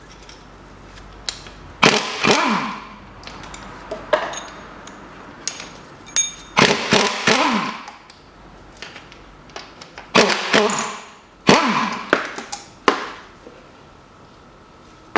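Hand tools and loose metal parts clanking and rattling in four or five sharp bursts, with light ratchet clicks between them, as the exhaust manifold nuts are undone and taken off a car engine.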